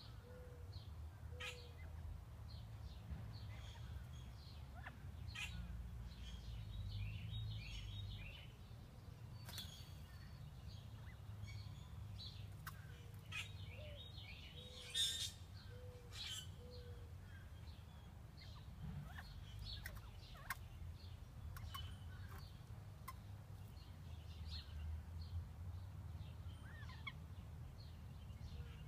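Northern bobwhite quail calling very softly with short low notes, among scattered higher chirps and the light ticking and rustling of birds moving through dry twigs and leaves, with one sharper click about halfway through. A faint low rumble sits underneath.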